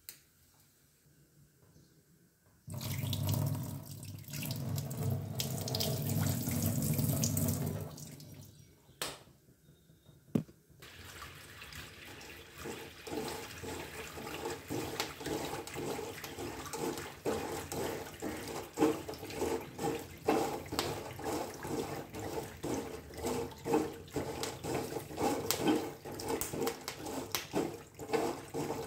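Gas burner flame rushing under a wire-mesh strainer, with irregular clicks and rattles as a metal spoon stirs the roasting slate pencil pieces in the mesh. A few seconds in there is a louder rushing for about five seconds, then a couple of sharp clicks before the stirring.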